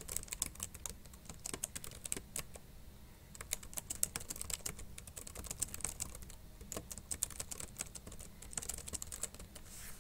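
Typing a sentence on a computer keyboard: fast runs of key clicks with brief pauses between them.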